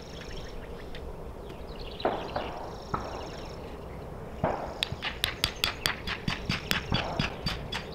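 A quick run of sharp knocks, about five a second for some three seconds near the end, as a small marker stake is tapped into the ground.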